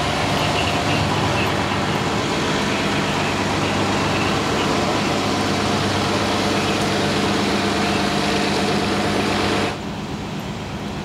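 Buses idling at a bus stop: a steady engine drone with a low hum under a broad hiss. Near the end it drops abruptly to a quieter, duller background.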